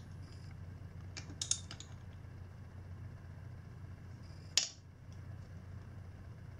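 Metal hand tools clicking and clinking as a socket and wrench are fitted onto the camshaft sprocket bolt of a motorcycle engine: a quick cluster of clicks a little over a second in and one sharper click past the middle, over a steady low hum.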